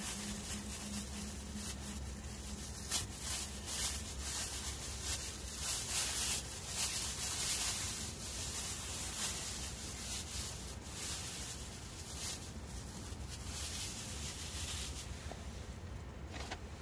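Thin plastic bag crinkling and rustling in irregular bursts as hands unwrap tortilla wraps from it, over a steady low hum.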